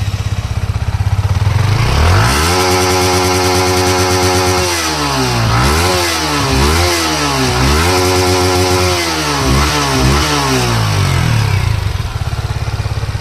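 Yamaha MT-15's 155 cc single-cylinder engine on its stock exhaust, idling and then revved: the pitch climbs and holds high for a couple of seconds, drops, gets three quick throttle blips, holds high again, blips a few more times and settles back to idle near the end.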